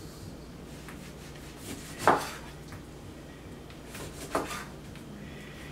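Kitchen handling sounds on a wooden cutting board: a sharp knock about two seconds in, a softer one a couple of seconds later and light rubbing between, over a faint steady hum.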